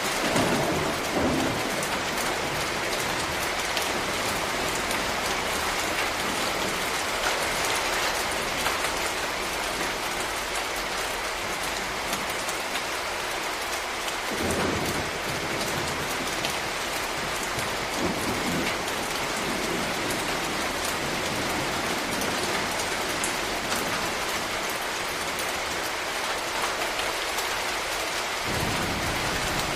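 Tropical rain falling steadily and heavily, a dense patter of drops. A few brief low rumbles rise out of it: about a second in, midway, and near the end.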